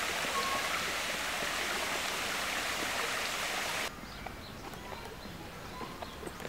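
Steady rush of a flowing stream, cut off abruptly about four seconds in and followed by a much quieter outdoor background with a few faint ticks.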